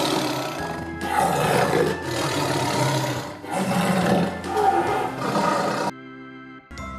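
A lion roaring: three long, rough roars, the last one cutting off about six seconds in.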